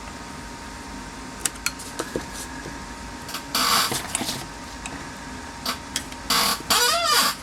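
A few light clicks, then a small power screwdriver running in short bursts, twice, speeding up and slowing down as it drives in a screw for the turn signal switch.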